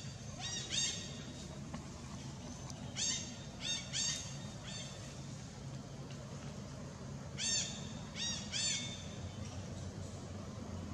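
Baby monkey crying: short, high-pitched calls that rise and fall, about nine of them in three bursts, two near the start, four around three to five seconds in and three around seven to nine seconds in.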